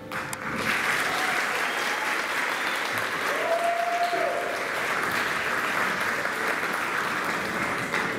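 An audience clapping, starting about half a second in as the music stops and holding steady, with one voice calling out briefly about three seconds in.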